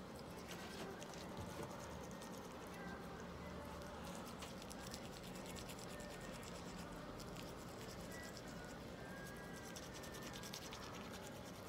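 Pet toothbrush bristles scrubbing a cat's teeth and gums in faint, quick scratching strokes that come in short runs.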